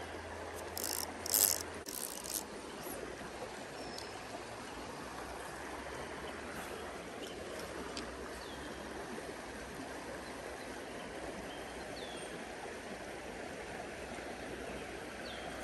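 High, muddy creek water flowing in a steady rush. About a second in there is a short burst of clicking and rustling.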